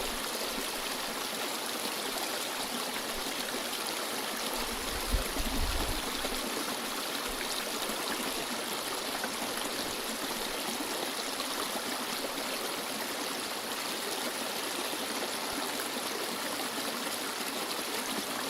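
A stream flowing: a steady rush and trickle of running water. About five seconds in there is a brief low thump.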